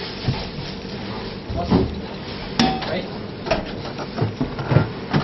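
Dishes and cutlery clinking and knocking at irregular intervals, one clink ringing briefly in the middle, over a background murmur of voices.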